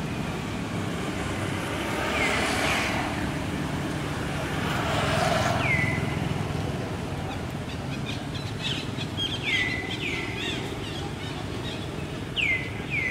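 A short high call repeats about six times, each one sliding down in pitch and levelling off, over a steady low rumble.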